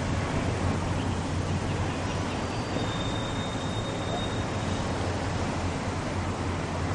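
Steady low outdoor rumble of background noise, even in level throughout, with no hits or calls standing out.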